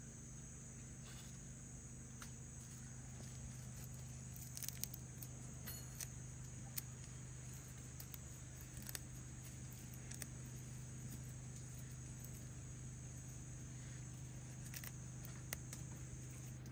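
Steady high-pitched chirring of insects, with scattered light clicks and a low steady hum underneath.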